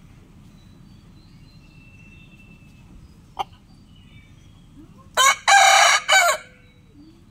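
A rooster crows once, about five seconds in: a loud cock-a-doodle-doo lasting about a second and a half, broken into several parts. A little earlier there is one brief sharp sound.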